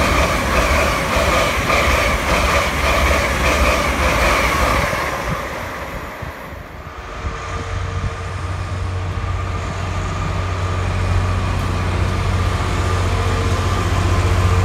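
LNER Azuma (Hitachi Class 800-series) train passing close by, with wheel-on-rail noise and a steady whine, fading away about five seconds in. Then a Class 66 diesel locomotive approaches and runs past, its two-stroke V12 engine giving a steady low hum that grows louder toward the end.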